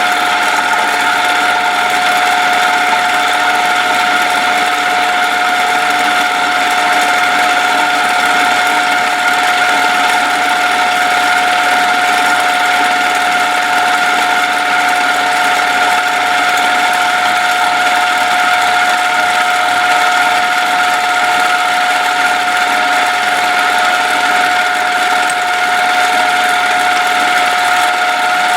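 Milling machine running a keyway cutter through a steel block, with a steady whine.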